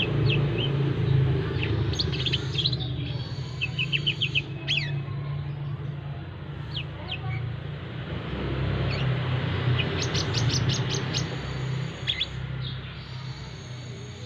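Brown-throated sunbird giving short, sharp chirps and chips, with a quick rapid run of chips about ten seconds in, over a low steady rumble of road traffic.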